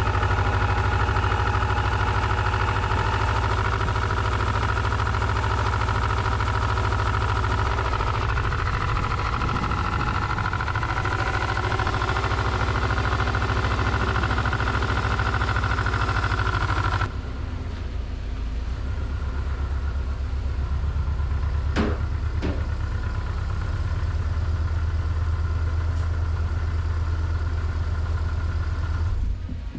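Subaru Legacy GT's turbocharged flat-four engine idling with a knock, just after starting, which the owner traces to a failed timing-belt tensioner. About halfway through the sound becomes duller and a little quieter, and two short clicks come a little later.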